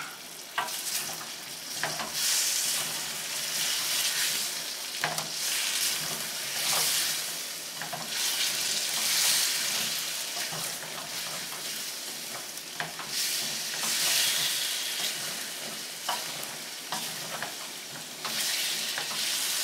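Fried potatoes and baby corn sizzling in a stainless steel pan in a honey and Szechuan sauce glaze while a wooden spoon stirs them. The sizzle swells and eases with the stirring, with scattered light knocks of the spoon against the pan.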